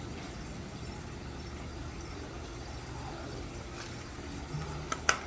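Steady low background hum, with a few sharp clicks near the end as packaging is handled.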